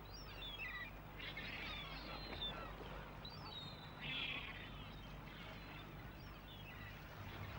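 Birds chirping and twittering, with short rising and falling chirps and two brief bursts of chatter, one about a second in and another about four seconds in. Under them runs a faint steady low hum.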